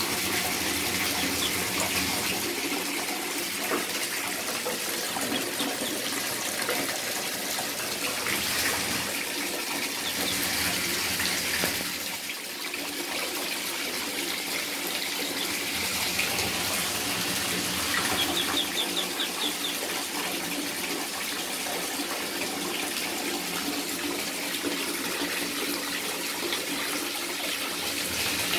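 Water running steadily into a bathtub from the tap, with Muscovy ducklings peeping faintly; a quick run of high peeps comes about two-thirds of the way through.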